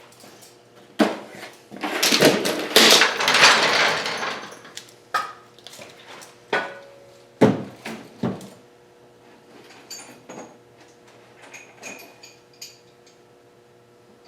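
Metal hand tools and parts clanking and rattling: a sharp knock about a second in, a stretch of dense clatter like rummaging through tools, then several separate clanks and, near the end, light metallic ticks and pings.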